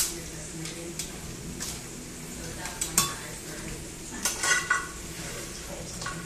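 Metal kitchen tongs clinking and scraping against a skillet and a glass blender jar as toasted dried guajillo and puya chiles are moved into the blender. There are a few sharp clinks, with a quick run of ringing clinks about four and a half seconds in.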